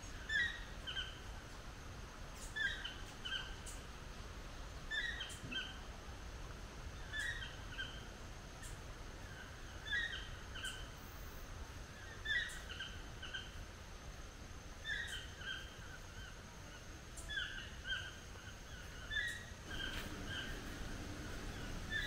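A bird repeating the same short phrase of a few quick, high notes about every two and a half seconds.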